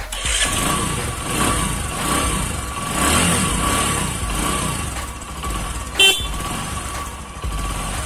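Bajaj Discover motorcycle's single-cylinder engine running, its pitch rising and falling. There is one short, loud toot about six seconds in.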